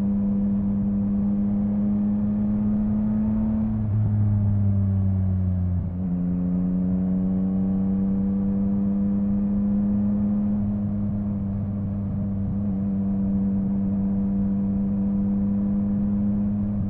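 Yamaha MT-09 inline-three engine running under way at moderate, fairly steady revs. The pitch eases down about four to six seconds in, with a brief dip in level near the six-second mark, then climbs gently and holds steady.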